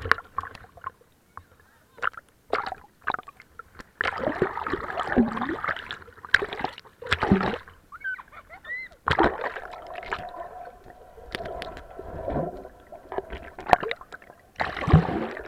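Pool water splashing, sloshing and gurgling around a waterproof action camera as it dips in and out of the water, with irregular knocks and surges.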